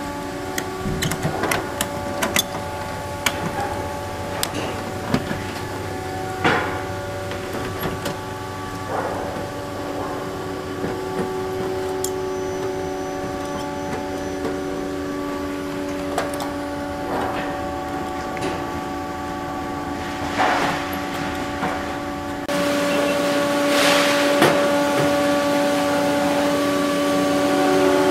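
Scattered sharp clicks and metallic taps as clecos are set and the aluminium wing skin is handled. Under them runs a steady hum of several held tones.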